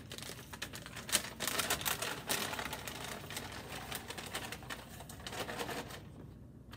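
Close rustling and crackling of paper slips being stirred in a bag for a prize drawing, a dense run of small rapid clicks that fades out near the end.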